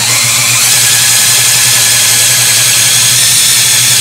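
Cordless drill spinning a General Tools plug/dowel cutter bit as it bores into mesquite wood to cut out a dowel, running at a steady speed.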